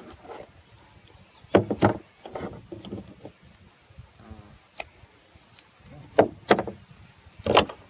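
Sharp knocks and clunks on a wooden tabletop as a whole pig is wired onto a rebar spit. There is a pair about a second and a half in, another pair about six seconds in, and a single loud knock near the end, with fainter taps between.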